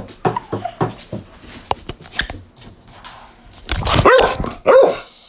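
A dog barking in play, in short sharp calls, with two louder, drawn-out barks about four seconds in.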